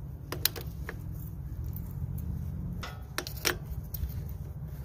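Light metal clicks of an open-end wrench on a carburetor's half-inch fuel shut-off solenoid as it is screwed into the float bowl, a few at a time in two short clusters, over a steady low rumble.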